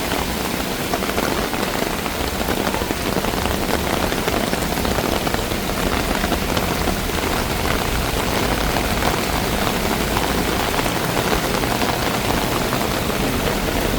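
Heavy monsoon rain falling steadily, a dense even hiss of rain on the street and surfaces, just beginning to ease off a little.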